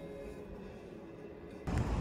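Quiet background music, then about a second and a half in an abrupt switch to loud outdoor street noise: low wind rumble on the microphone over traffic.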